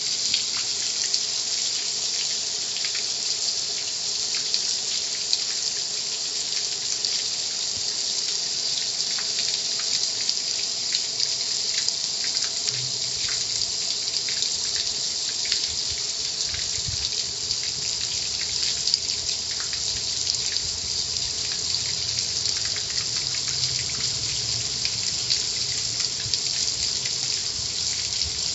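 Car wash water spray running in a steady hiss, with a low hum joining about halfway through.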